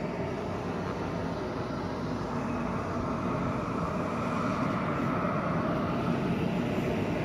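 Vacuum running steadily, sucking the air out from behind a newly installed vinyl pool liner to pull out the wrinkles; a constant drone that swells slightly in the middle.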